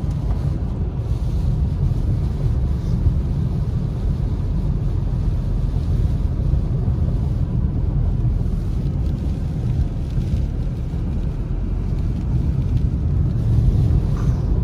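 Steady low rumble of road and tyre noise heard from inside a moving car on a rain-soaked road.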